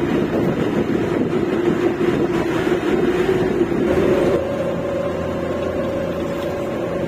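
Bus engine and road noise heard from inside a moving Uttarakhand Roadways hill bus. A steady engine tone shifts to a higher tone about four seconds in, and the sound turns slightly quieter.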